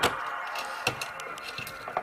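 Plastic and metal computer parts handled during reassembly: a sharp click, a rubbing scrape for about a second and a half, then a couple of light clicks.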